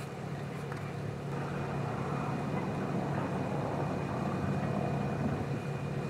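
A car engine idling with a steady low hum, getting a little louder over the first couple of seconds.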